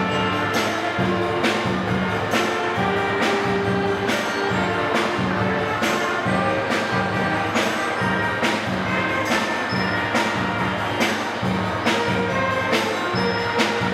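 Instrumental background music with sustained notes over a steady beat.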